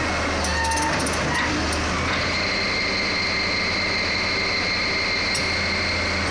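Old Hitachi tracked excavator's diesel engine running steadily while the machine moves on the trailer deck. A steady high whine joins about two seconds in and holds almost to the end.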